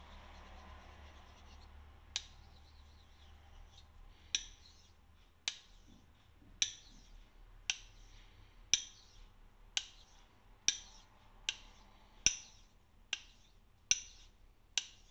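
Straight razor being honed on a small wet Thuringian slate hone: a sharp click each time the razor is flipped over and its Kapton-taped spine meets the stone. The clicks come about once a second, a little faster near the end.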